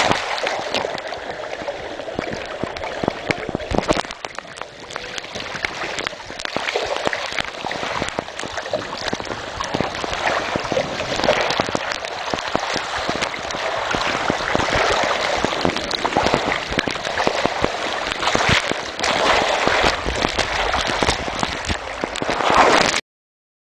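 Water rushing and splashing down an open-top outdoor water slide around a sliding rider, with many small knocks through it. The sound cuts off suddenly near the end.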